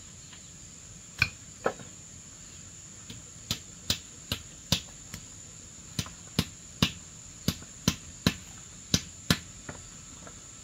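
Hand hammer striking a frame of wooden poles: about fifteen sharp blows in uneven runs, roughly two a second, as it knocks the joints together. A steady high insect drone runs underneath.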